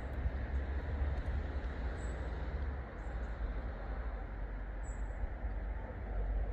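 Distant Class 66 diesel locomotive approaching at the head of a loaded biomass freight train: a steady low rumble with a hiss over it.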